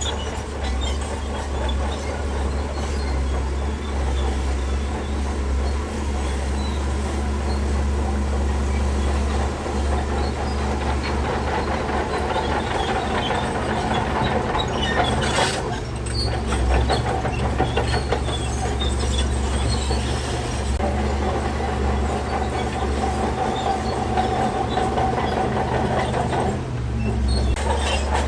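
Shantui DH17C3 crawler bulldozer working: its diesel engine runs with a steady low drone while the steel tracks clank and squeal as it moves.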